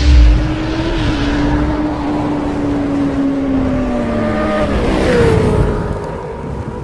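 Motorcycle engine sound effect: a heavy hit at the start, then a high engine note held steady over a rushing hiss, dropping in pitch after about four seconds as it fades.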